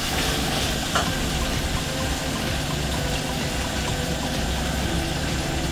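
Cabbage and smoked-fish sauce sizzling and steaming in a pot on the stove: a steady hiss with a low rumble underneath and one faint click about a second in.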